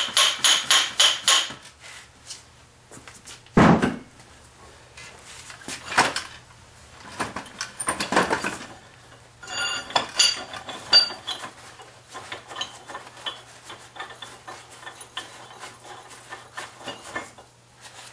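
Hammer tapping on a rusted, seized blacksmith's vise: a quick run of about five ringing metal strikes a second, then a heavier knock about four seconds in and a few more strikes. After that come clinks and rattles of loose iron parts as the stuck screw and jaw are worked free.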